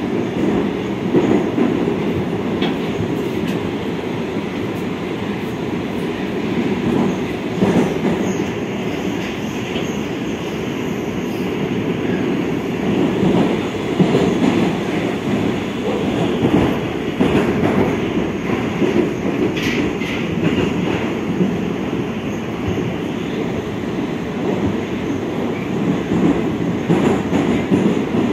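Metro train running through a tunnel, heard from inside the passenger car: a steady rumble of wheels and running gear with occasional knocks over the rails.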